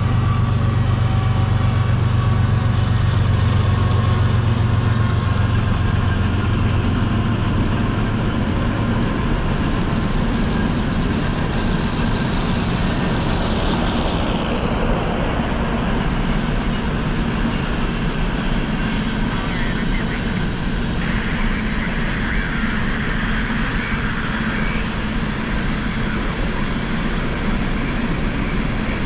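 A train rolling past: a loud, steady rumble of wheels on rail, with a low engine hum over the first several seconds that then fades, and a high tone sliding down in pitch about halfway through.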